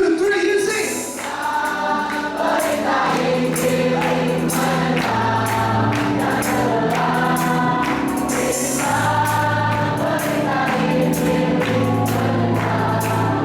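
Choir singing a gospel hymn arrangement in sustained chords over instrumental accompaniment. Long held bass notes change every couple of seconds under a steady beat.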